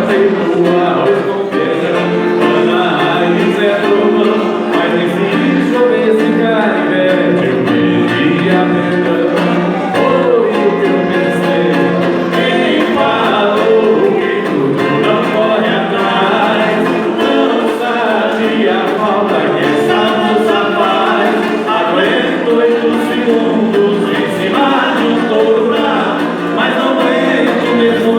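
Music: a sertanejo song, with singing over instrumental backing.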